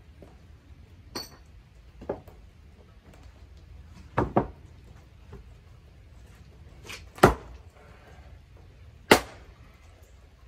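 Hardwood being split by hand with a splitting maul or axe: a series of sharp, irregularly spaced knocks, about six in all, the loudest two about seven and nine seconds in.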